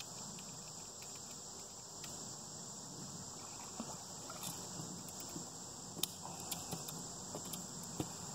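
Steady, high-pitched chirring of an evening insect chorus, with scattered sharp clicks and taps from about halfway through, a couple of them louder.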